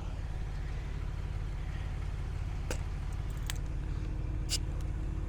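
2022 Ford Bronco engine idling with a steady low hum. A few faint clicks come in the second half.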